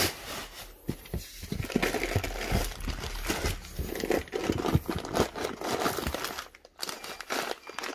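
Crumpled packing paper and a plastic bag rustling and crinkling as hands dig through a cardboard box. It is a rapid, irregular run of crackles that dies down near the end.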